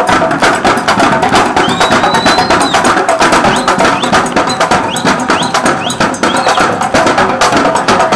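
Street drum line of snare and bass drums playing a fast cadence for a dancing drill team: rapid sharp strikes in a steady driving beat.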